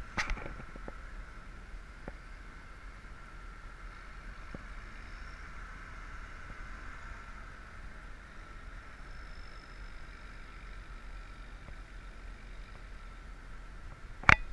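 A vehicle engine running steadily and fairly quietly, with a lasting whine-like tone over a low rumble. One sharp click comes just after the start and a louder one near the end.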